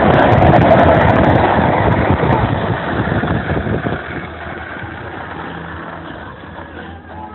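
Rushing wind and road noise from a moving Chrysler PT Cruiser, picked up by a phone held out of its window. The noise is loud at first and drops off about four seconds in to a quieter, steadier car noise.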